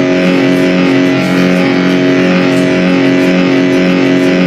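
Battleship Bismarck's whistle sounding one long, steady blast: a chord of several held pitches over a rushing hiss.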